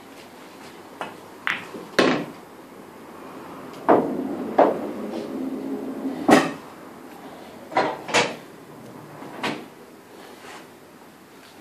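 Pool balls clicking and knocking: about ten sharp hits of ball on ball and ball on cushion or pocket during play, with a rolling rumble after a pair of knocks about four seconds in.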